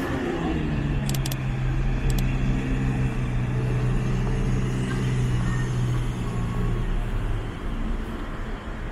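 A motor vehicle engine running with a steady low hum that drops in pitch in the first half second and fades out about seven seconds in, over road traffic noise.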